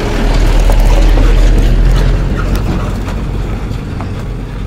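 Mahindra pickup truck's engine running as it drives close past and pulls away on a dirt track, loudest about a second in, then fading.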